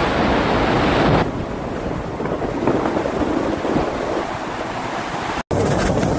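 Wind rushing over the microphone of a moving motorcycle, mixed with road and engine noise. The sound changes abruptly about a second in and cuts out for an instant near the end.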